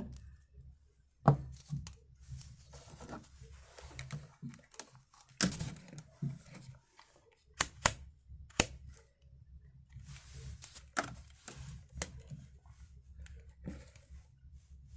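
Handling noise from a digital multimeter, its test leads and loose wires: scattered sharp clicks and knocks with light rustling in between.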